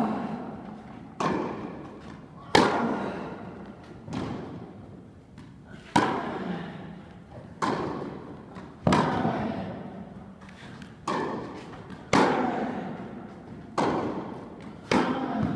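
Tennis rally: a steady run of sharp pops from the ball striking the rackets and bouncing on the court, about one every second and a half, each ringing out in the echo of a large indoor tennis hall.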